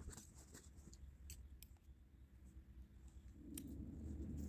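Faint scattered clicks and rustles of a backpack's buckles and straps being handled. A low rumble comes in about three seconds in.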